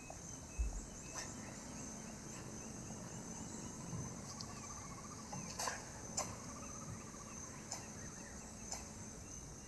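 Faint, steady high-pitched insect chorus, with a few scattered clicks and scrapes. Two faint trilling calls come in the middle.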